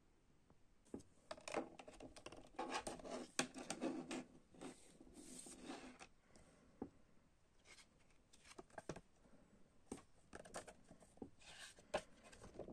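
Clear plastic CD jewel case being handled and a folded paper poster being taken out: scattered clicks and taps of plastic with bursts of paper rustling, busiest in the first half and again near the end.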